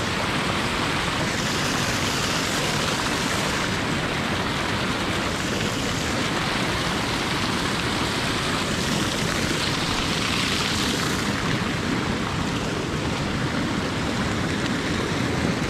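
Steady rush of turbulent river water, an even, unbroken noise.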